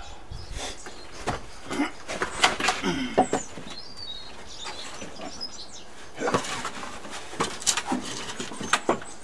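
Pallet-wood workbench frame being handled and turned over: a run of wooden knocks and clatters, in one cluster about one to three seconds in and another from about six to nine seconds in.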